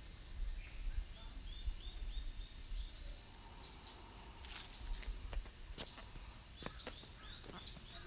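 Forest birds calling: a quick run of about six short repeated notes about a second in, then scattered sharp chirps, over a steady high-pitched insect drone. Low rumbling on the microphone in the first half.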